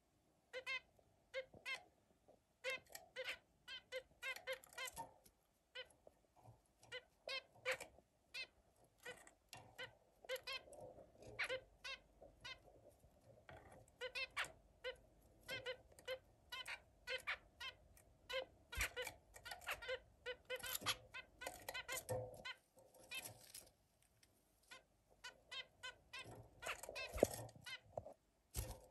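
Zebra finch calling: a long, irregular stream of short, high chirps, about two a second. A couple of sharp clicks or knocks near the end, the loudest about two seconds before the end.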